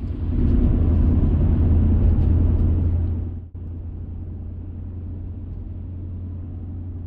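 A motor vehicle driving, a steady low drone of engine and road noise. About three and a half seconds in it drops suddenly to a quieter steady drone.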